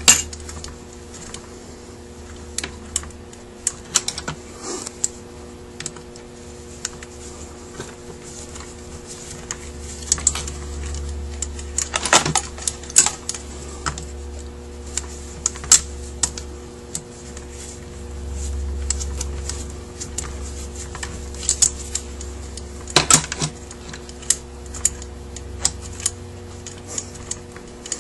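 Scattered sharp clicks and taps of small metal parts and a hand tool against a Rochester Quadrajet carburetor body as it is taken apart, with brief clusters of clicks about twelve and twenty-three seconds in, over a steady faint hum.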